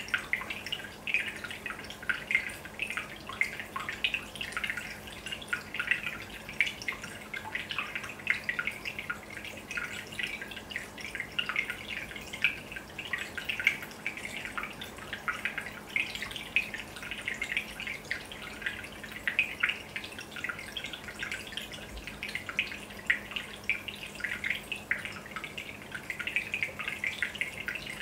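Aquarium aeration bubbling: a dense, irregular patter of small bubbles popping and dripping at the water surface, over a steady low hum.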